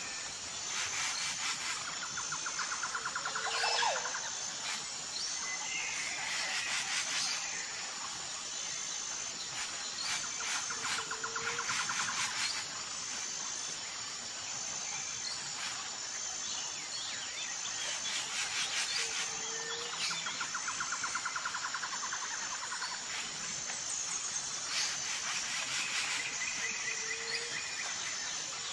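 Outdoor nature ambience: a high insect chirp pulsing steadily, with birds calling and trilling at intervals, the same sequence of calls coming round again every several seconds.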